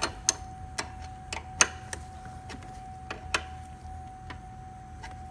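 Irregular sharp metallic clicks and taps of a wrench on the brake line fittings of a master cylinder, as the lines are cracked open and closed to bleed air out. A faint steady tone sounds underneath.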